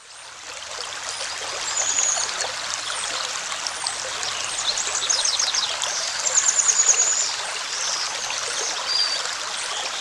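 Babbling stream water, fading in over the first couple of seconds, with short high chirps and quick trills over it, busiest a little past the middle.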